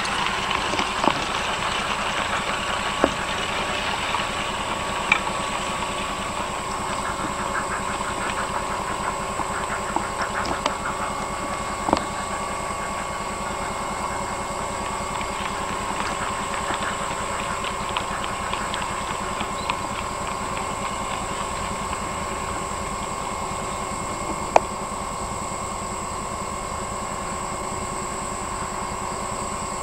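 Steam locomotive hauling its train in the distance: faint, irregular chuffing and clanks over a steady hum and hiss, with a few sharp clicks.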